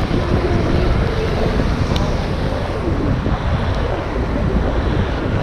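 Steady wind buffeting the microphone over the low rumble of a Onewheel XR rolling on pavement, with faint wavering tones underneath.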